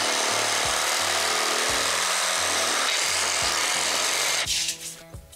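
Milwaukee M12 Hackzall cordless reciprocating saw cutting through 1-1/2-inch PVC sump pump discharge pipe. It runs steadily and stops about four and a half seconds in.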